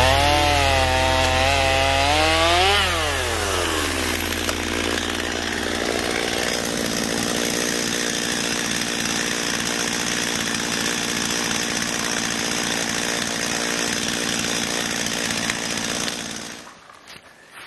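Stihl MS250 two-stroke chainsaw running at high revs, limbing branches off a fallen tree. The engine note stays steady and then drops away suddenly near the end.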